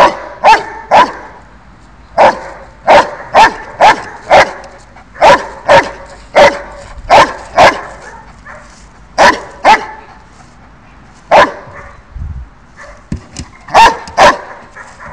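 Dutch Shepherd barking at a decoy in a bite suit. About eighteen loud, sharp barks come mostly in quick pairs, with short pauses between them and a longer lull late on.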